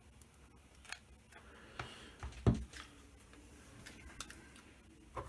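Handling sounds at a workbench: scattered light clicks of a plastic hot glue gun and a clock movement being worked, with one louder dull knock about two and a half seconds in as a piece is set down on the table.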